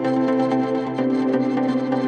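Background music: a calm ambient track with held notes and a light, even pulse.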